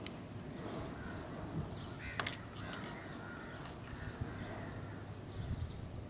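Faint outdoor background with bird calls, and a few sharp clicks about two seconds in and again a little later as wires are handled.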